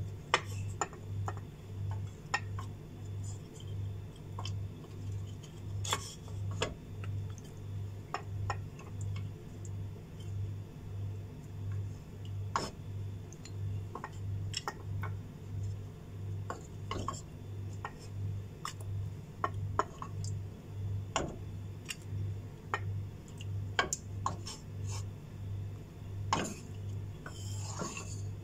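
Wooden spoon scraping and knocking in a pot of mutton stock, with scattered sharp clicks as bone-in mutton pieces are fished out onto a plate. Under it runs a low hum that pulses about one and a half times a second.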